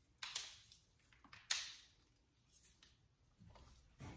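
Faint handling noise from a bendable-leg mini tripod being flexed in the hands: two short rustles a little over a second apart, with a few tiny ticks.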